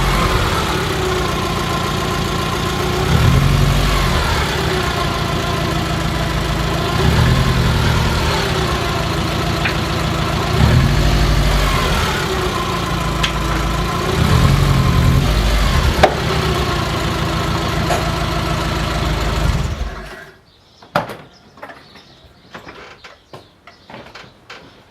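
A car engine running and swelling and easing several times under changing load, with a few short sharp knocks. The knocks are likely the car's occasional clunk, which comes on acceleration, engine braking and braking, and which the owner ties to the change in direction of the forces. Near the end the engine sound stops abruptly, leaving small clicks and one knock.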